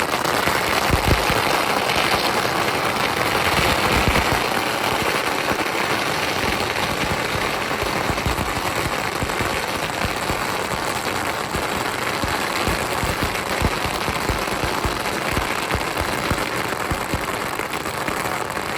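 Fireworks crackling and popping in a rapid, continuous stream of small bangs, like strings of firecrackers going off.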